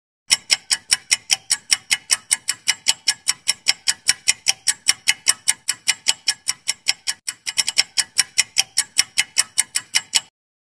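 Clock-ticking sound effect timing a quiz answer countdown: fast, even ticks, about five a second, that start just after the opening and stop abruptly about ten seconds in, with a brief stumble in the rhythm about three-quarters of the way through.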